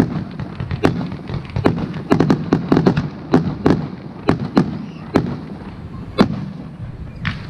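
Aerial firework shells bursting in a run of sharp bangs with a low rumble between them. The bangs come thick and fast for about a second near the middle, then space out.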